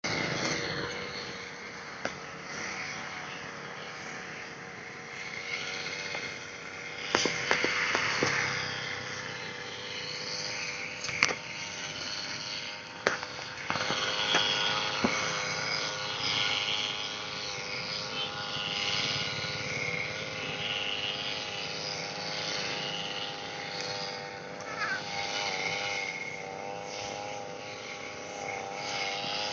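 Engine-driven brush cutter running steadily at high speed, with a few sharp clicks and knocks from about seven seconds in, as the line hits grass and stones.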